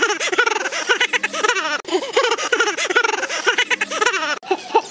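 A young man's loud, exaggerated laughter in a rapid run of ha-ha bursts, several a second, with brief breaks for breath. It is a staged laugh, acted on cue as the comic (hasya) rasa.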